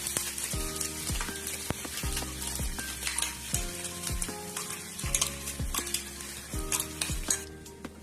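Sizzling in a pan with a spoon stirring and scraping, over background music with a steady beat; the sizzling dies away near the end.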